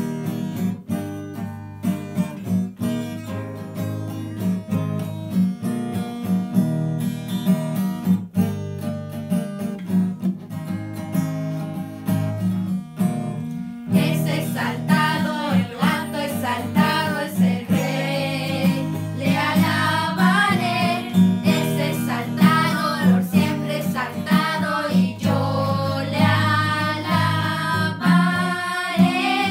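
An acoustic guitar is strummed alone for about the first fourteen seconds, then children's voices join, singing a worship song in unison over the strummed chords.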